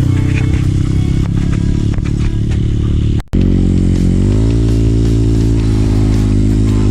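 Trail motorcycle engine running under load with rattling and clicks. The sound cuts out abruptly for an instant about three seconds in, then resumes as a steady engine note that rises in pitch and holds.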